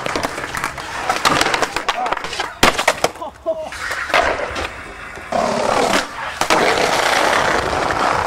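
Skateboard sounds: sharp clacks and slaps of board pops and landings, then from about two-thirds of the way in a steady rumble of wheels rolling over brick paving.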